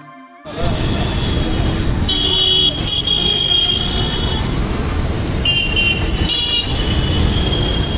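Busy street traffic of auto-rickshaws and motorbikes with horns honking repeatedly, one long blast about two seconds in and more near the end.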